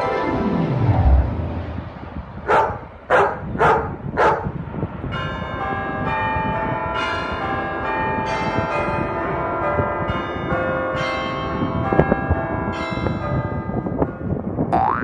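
A string of stock sound effects: a falling whistle that drops to a low thud about a second in, four quick dog barks, then church bells ringing a peal, tone after tone overlapping.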